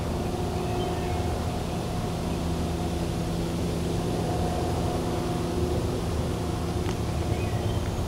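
Steady engine hum: a low rumble with several constant tones over it, and a faint click about seven seconds in.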